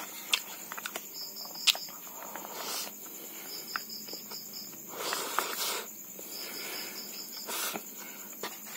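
Crickets chirping in pulsed trills that come and go, over close eating sounds of someone eating rice by hand from a styrofoam box: chewing, lip smacks and sharp clicks.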